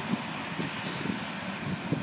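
Farm tractor running, a steady rough rumble with irregular low knocks.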